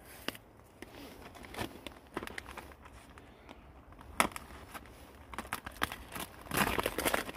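Papery rustling and crackling as dry onion skin is peeled by hand, then plastic food packaging being handled. A louder burst of plastic crinkling comes near the end as the film is opened on a plastic meat tray, after a single sharp click about four seconds in.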